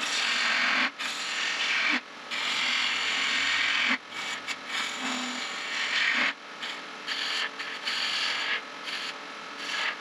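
Turning gouge cutting a spinning wood spindle on a lathe: a hissing shear of shavings in several passes of one to two seconds with short breaks between them, the cuts lighter and choppier in the second half.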